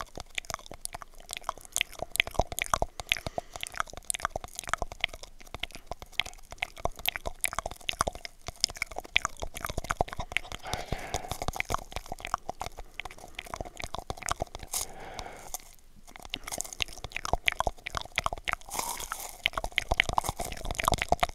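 Close-up mouth sounds made through a cardboard toilet paper roll held against the microphone: dense, rapid mouth clicks, with a short pause about sixteen seconds in.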